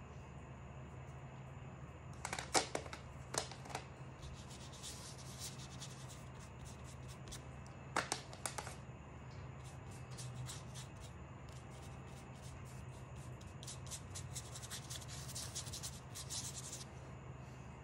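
A paintbrush rubbing and scratching lightly over watercolour paper, in faint, rapid strokes that grow busier near the end, with a few sharper clicks in the first half over a steady low hum.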